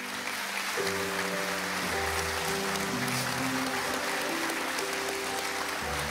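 Studio audience applauding steadily, with soft background music of sustained notes coming in about a second in.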